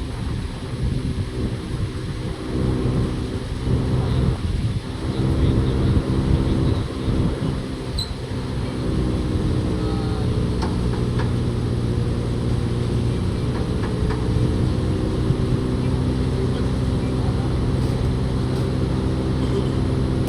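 A machine running with a steady low droning hum, uneven for the first several seconds and then settling to an even pitch.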